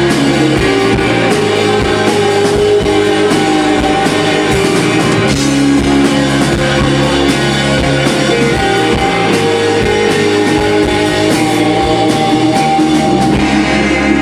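Loud rock music with guitar, a drum kit and singing.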